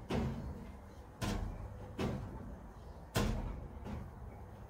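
Sheet-metal shed door knocking against its metal door jamb four times, about a second apart, each a short rattling bang with a brief ring. The door strikes the jamb before it can close, a sign of its hinges being misaligned with the jamb.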